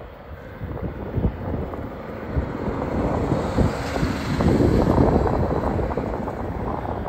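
Distant twin turbofan engines of a Cessna Citation Bravo business jet running, a steady hum half buried under wind buffeting the microphone in gusts. The wind swells about four to five seconds in.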